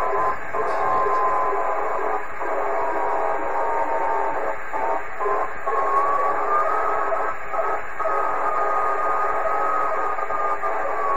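Radio receiver hiss with a single whistling tone that slowly wanders up and down in pitch: a satellite's carrier, taken to be the MaSat-1 CubeSat's, drifting with Doppler shift. The signal fades in brief dropouts several times.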